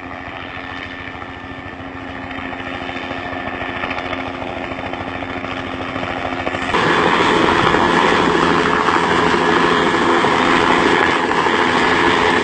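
Helicopter engine and rotor running close by: a steady drone with a held tone, growing louder. About seven seconds in it jumps suddenly to a much louder, harsher sound.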